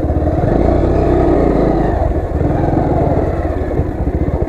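Motorcycle engine running as the bike rides off, picking up revs about half a second in and then pulling steadily.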